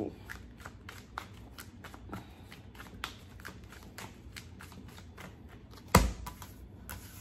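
Tarot cards being shuffled by hand: a quick run of soft card clicks and rustles, with one louder thump about six seconds in.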